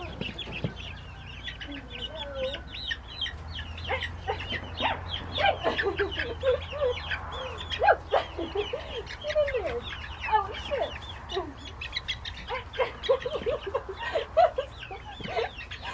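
A small flock of young chickens calling nonstop as they are handled and moved into the coop: many short high peeps mixed with lower clucks and squawks.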